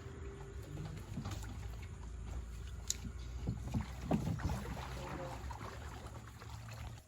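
Boat moving through floodwater, with a steady low rumble under scattered knocks and splashes and a sharp click about three seconds in.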